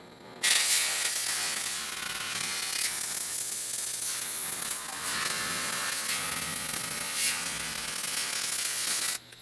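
Oxy-fuel cutting torch on a Victor DC2400 pattern-cutting machine, its jet hissing steadily as it cuts through 5/8-inch steel plate. The hiss starts suddenly about half a second in and stops just before the end.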